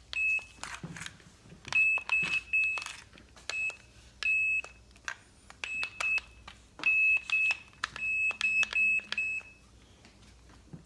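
Electronic stud sensor beeping: many short, high beeps in quick groups of one to four, each with a sharp click, stopping about a second before the end.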